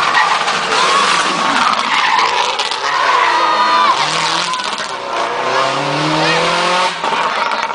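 Rally car passing at speed, its engine revving hard and changing pitch through gear changes, with the tyres squealing as it slides through the corner about three to four seconds in. The engine note then falls away as the car leaves.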